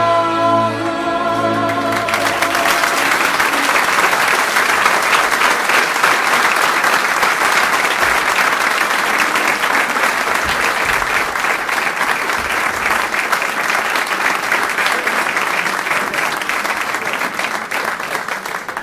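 A folk orchestra's last held chord fades out in the first couple of seconds, then an audience applauds steadily, easing off slightly near the end.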